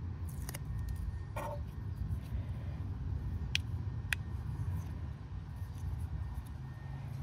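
Small handling clicks, a few in all and two clearer ones close together midway, as a small plastic shock-sensor alarm and its round mounting plate are fitted together by hand. A steady low rumble runs underneath.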